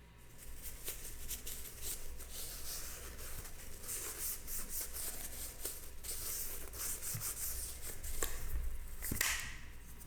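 Metal pistol parts being handled and worked by hand: a continuous scratchy rubbing and scraping with a few sharp clicks of parts meeting.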